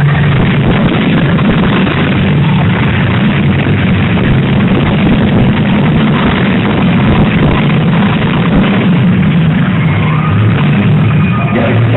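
Loud, steady din of many unmuffled demolition-derby car engines running hard together.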